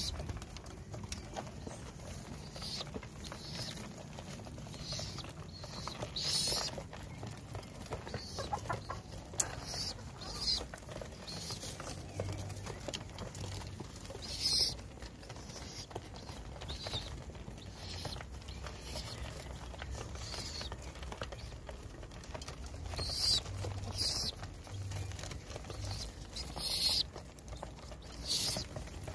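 A flock of fantail pigeons pecking grain off a wooden coop floor: scattered short, crisp taps and rustles every second or two, a few of them louder.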